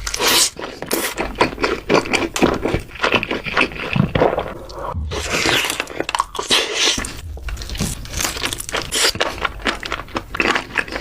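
Close-miked eating: repeated crunching bites and wet chewing, with scraping in between.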